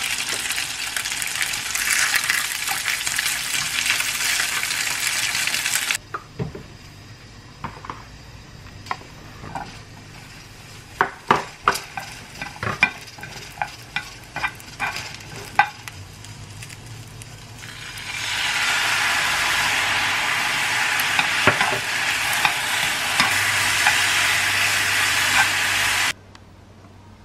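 Ham and imitation crab sticks sizzling in oil in a frying pan; the sizzle cuts off about six seconds in. Then chopsticks click and tap against the pan as strips of fish cake are stirred. From about eighteen seconds a loud sizzle returns as the fish cake strips stir-fry in a soy sauce seasoning, and it stops abruptly near the end.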